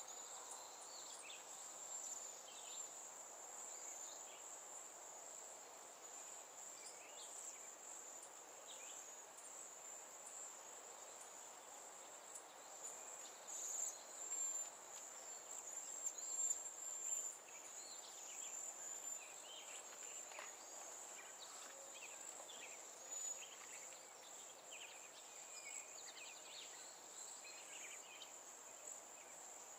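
A steady, high-pitched insect trill, with short bird chirps scattered through it.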